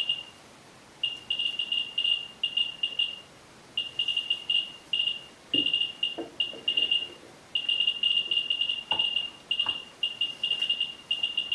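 A Ludlum Model 12 rate meter's speaker chirps once for each neutron counted by the helium-3 detector tube, as the beryllium is brought onto the polonium-210 alpha source. The high-pitched chirps come at a random, irregular rate and grow denser in the second half. A few soft knocks about halfway in come from polyethylene moderator blocks being set in place.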